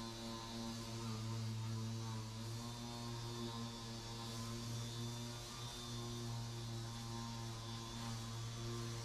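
Air-powered dual-action sander running steadily against body filler on a car's quarter panel: a constant hum with a hiss of air over it.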